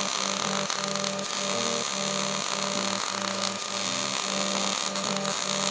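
110-volt MIG welder laying a continuous bead, a steady crackling sizzle of the arc, under background music with a stepping bass line.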